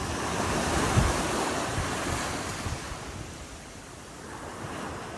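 Sea waves breaking and washing up a sandy beach: a wave swells and breaks about a second in, then its rush of surf fades away. Wind buffets the microphone with a low rumble.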